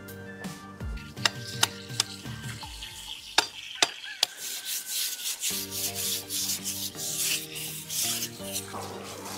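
A knife scraping along a green bamboo pole in quick repeated strokes, after a few sharp knocks, over background music.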